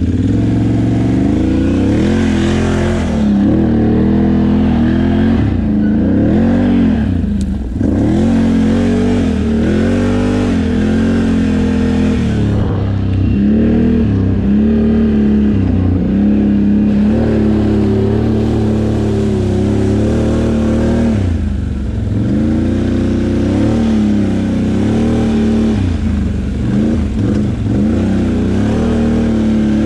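Can-Am Outlander XMR 850 ATV's V-twin engine running as it is ridden, its revs rising and falling again and again as the throttle is worked.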